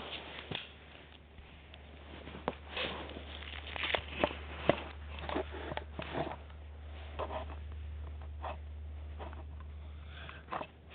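Hands handling and repositioning a camcorder: scattered clicks, taps and short rustles right at the microphone, over a steady low hum.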